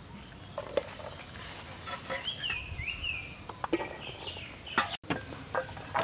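A metal ladle clinks several times against steel bowls and plates while cooked chickpeas are scooped and served. A bird calls in the background with a few high, rising and falling notes about two seconds in.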